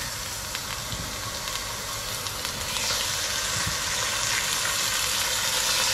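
Pork neck fillets searing in hot oil in a pot: a steady sizzle that grows louder about halfway through.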